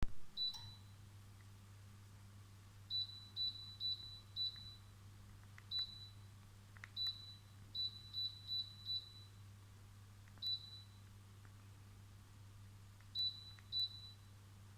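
Short, identical high electronic beeps from the control electronics of a Panoramic 25 LED FX electric fireplace insert, about fifteen in all, some single and some in quick runs of three to five, as its settings are stepped through. A steady low hum runs underneath.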